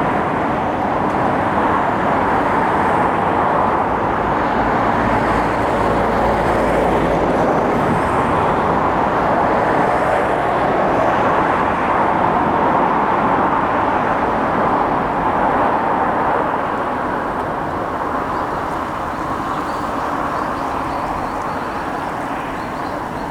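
Train passing close by, a steady rolling rumble of wheels on rail that eases off after about sixteen seconds.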